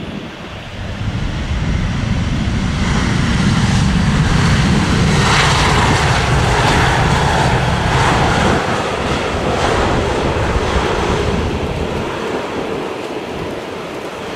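Airbus A320's twin CFM56 turbofan engines on the landing rollout. The engine noise swells over the first few seconds as the jet rolls past close by, is loudest and hissiest in the middle, then fades as it moves away down the runway.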